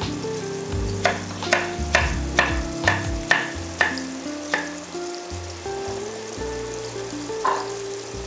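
Chef's knife slicing a carrot into rounds on a wooden cutting board: a quick series of sharp chops, about two a second, with one more chop near the end.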